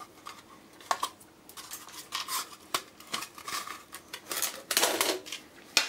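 Hard plastic casing of a gas-heater control module being handled and pried apart to free its circuit board: scattered clicks and taps, with louder scraping rustles in the second half.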